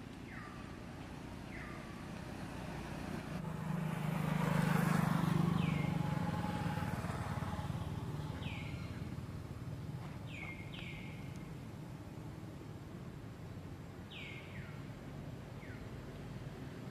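A motor vehicle passing on the road: its engine hum swells to its loudest about five seconds in, then fades away. Several short high calls that fall in pitch recur now and then.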